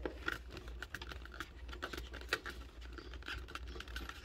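Small irregular plastic clicks and light scraping as the removable chin cover of a full-face motorcycle helmet is unlatched at its side tabs and worked loose by hand.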